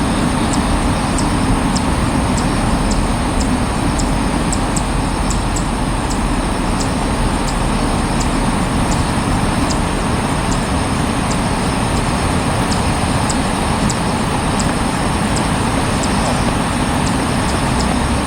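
Steady outdoor background roar with no single clear event, and short faint high ticks recurring about twice a second.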